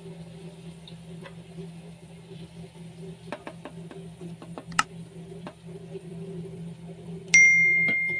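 Chopped garlic and onion frying in oil in a pan, with a spatula scraping and clicking against it several times in the middle. About a second before the end, a loud bright bell ding rings out and keeps ringing, from a subscribe-bell sound effect.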